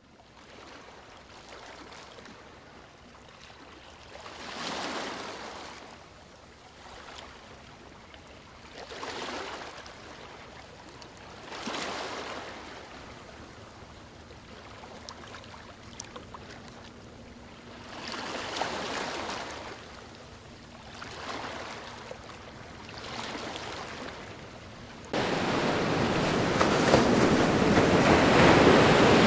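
Sea waves washing onto the shore, each swelling and fading every few seconds. About 25 seconds in the sound jumps suddenly to a much louder, steady rush of water.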